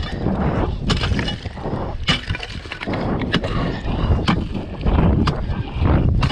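A steel ice chisel (spud bar) striking and breaking lake ice, about one sharp chop a second, six times.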